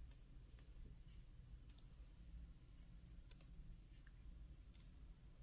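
Near silence with a handful of faint, sharp clicks a second or so apart, from handling the glossy pages of a photobook.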